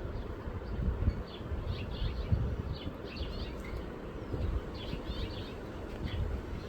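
Small birds chirping in short, faint, high-pitched clusters every second or so, over a steady low rumble.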